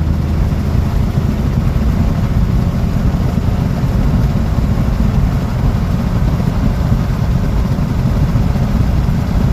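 Single-engine Piper's piston engine and propeller running steadily at low taxi power: an even, low hum.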